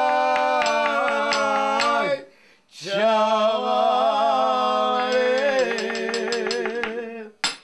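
Two men singing a folk tune together without instruments: long held, wavering notes with a short pause for breath about two seconds in, over light evenly spaced clicks keeping time. The singing ends with a sharp click near the end.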